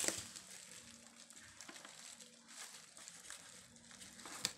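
Faint rustling and crinkling of bubble wrap being handled, with a single sharp click near the end.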